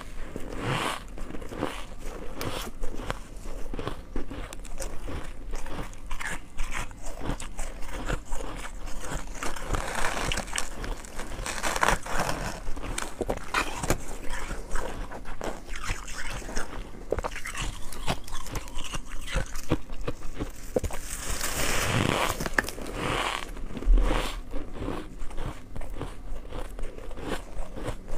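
Close-miked biting and chewing of soft, snow-like ice: a continuous run of crisp crunches.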